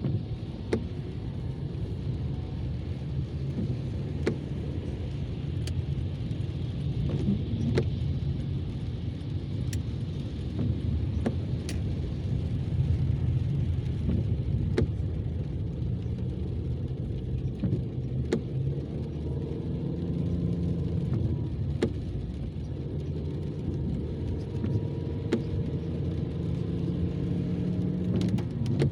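A car driving: a steady low rumble of engine and road noise, with scattered sharp ticks.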